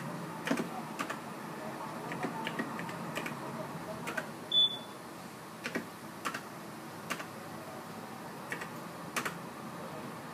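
Keys of a Transdata Smart keypad terminal clicking as they are pressed, about fifteen irregular presses. One short high beep about four and a half seconds in is the loudest sound.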